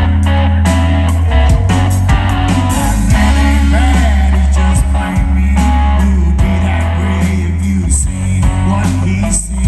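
Live country-rock band playing through a PA: electric guitar lines with bent notes over a steady bass guitar and drum kit.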